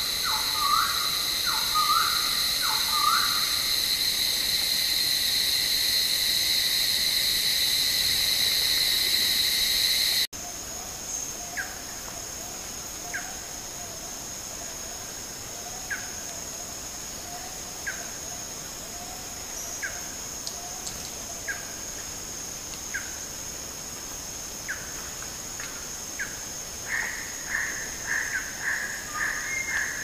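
Steady, high-pitched insect chorus, loud for the first ten seconds and then cut abruptly to a quieter chorus. Over it a bird gives a quick run of short down-slurred calls at the start, later single short notes every second or two, and a rapid series of calls near the end.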